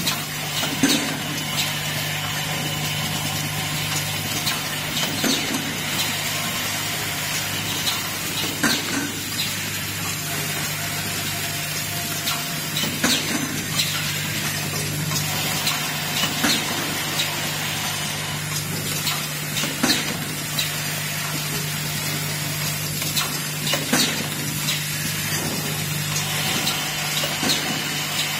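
Automated assembly machine running, with a steady low hum and hiss. Short sharp clacks from its pneumatic cylinders and slides come irregularly, every second or two.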